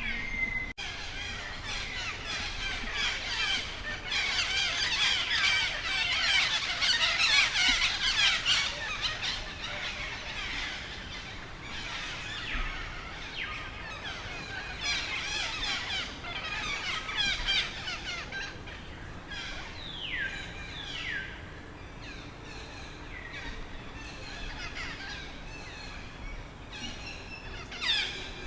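High-pitched animal calls: a dense run of overlapping chirps and squeals, loudest in the first third, then sparser calls with a couple of sharp falling squeals around the middle.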